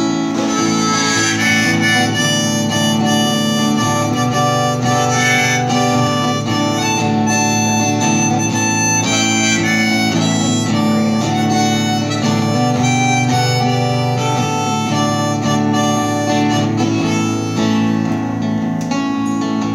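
Harmonica playing an instrumental solo over a strummed acoustic guitar, both played by one musician.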